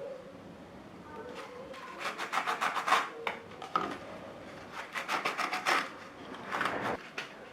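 A hand file rasping on plywood in three short bouts of quick scratchy strokes.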